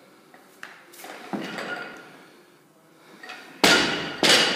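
A loaded 60 kg barbell with bumper plates clanking during clean reps: a few light metal knocks, then two loud bangs about half a second apart near the end, with the plates ringing after them.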